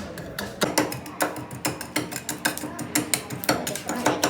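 Irregular sharp mechanical clicks, about three or four a second, from hands-on work on a 32-ton hydraulic jack.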